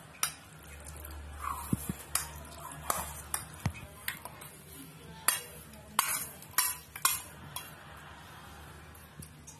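Steel spoon knocking and scraping against a steel plate and a stainless-steel mixer-grinder jar as lumps of jaggery are tipped into the jar: a string of sharp metallic clinks.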